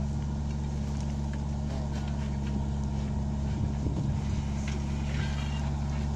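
Compact tracked excavator's diesel engine running at a steady drone while its bucket drags and pushes loose soil, with scattered light clicks and clatters of earth and stones.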